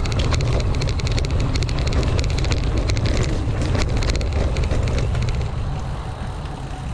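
Mountain bike rolling over a rough dirt forest trail: a steady wind rumble on the microphone with dense rattling and clicking of the bike and tyres over roots and stones, easing off near the end as the bike slows.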